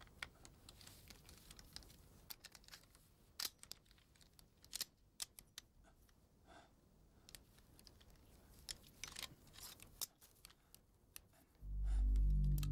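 Faint scattered clicks and rustles of a hunting rifle being handled and raised to the shoulder. Loud, low music comes in near the end.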